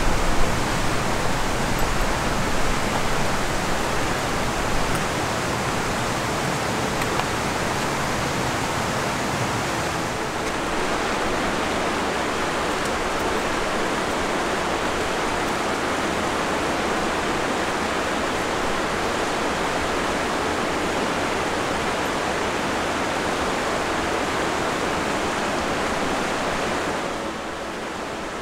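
Rushing water of a snowmelt mountain creek: a steady, even rush of white water that drops a little in level near the end.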